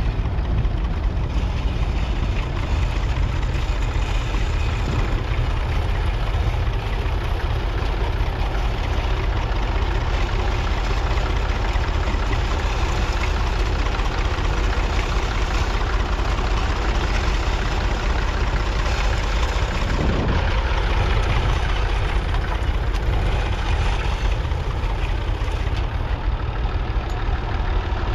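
1962 Massey Ferguson 35X's 2.5-litre three-cylinder diesel engine running steadily with a low diesel knock.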